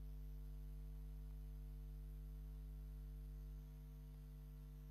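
Faint, steady electrical mains hum, a low buzz with several higher overtones, on an otherwise quiet audio line. Its lowest part drops slightly about three and a half seconds in.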